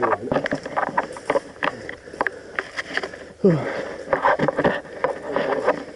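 Irregular rustling, scraping and clicking from a player moving about and handling gear, with a short downward-sliding sound about three and a half seconds in.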